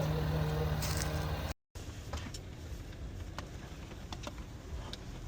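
A Jeep's engine running steadily with a low hum, which cuts off abruptly about one and a half seconds in. After that comes a quieter background with a few scattered faint clicks.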